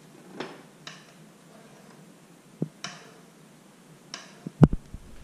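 Metal spoon clinking and tapping against a sauté pan as sauce is spooned over fish fillets: a scattering of light ticks, with a sharper knock and thud near the end.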